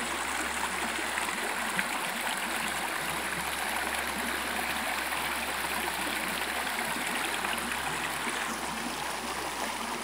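Shallow spring-fed stream running low over rocks and riffles: a steady rush of flowing water.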